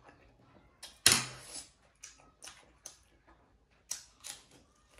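Close-up eating noises: a loud slurp of instant ramen noodles about a second in, followed by short wet chewing clicks, then crisp crunches of biting into a raw lettuce leaf near the end.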